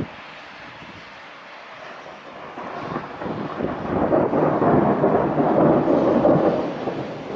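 Thunder rumbling: a low roll swells from about two and a half seconds in, holds loudest for a couple of seconds, then fades near the end.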